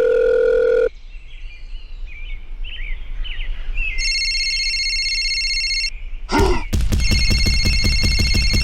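Electronic phone-style sound effects: a steady dial-tone-like tone that cuts off about a second in, faint bird-like chirps, then a trilling electronic ring twice, the second over a rapid low rattle.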